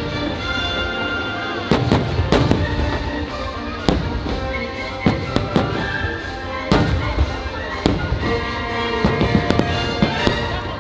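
Fireworks shells bursting in repeated sharp bangs at irregular intervals, with a quick cluster near the end, over patriotic show music.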